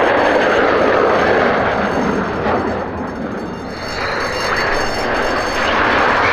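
Fighter jet engines roaring on the runway during landing, a steady rushing jet noise that eases for about a second near the middle and then rises again.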